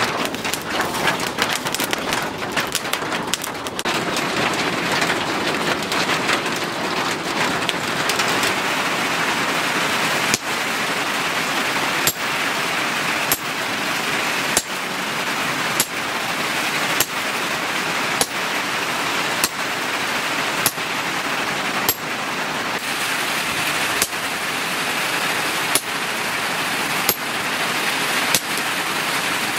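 Hammer blows on red-hot leaf-spring steel on an anvil, one roughly every second and a quarter from about a third of the way in, over a steady rushing hiss. Before the blows, scattered crackling comes from the steel heating in the charcoal forge.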